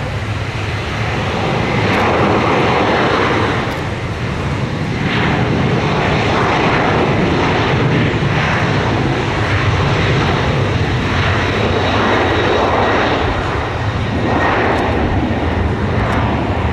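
Boeing 737-800's CFM56-7B jet engines running at high power on its departure roll, a loud, steady rumble and rush that swells about two seconds in and holds, surging slightly.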